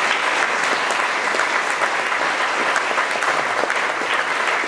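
Audience applauding: dense, steady clapping from a full room.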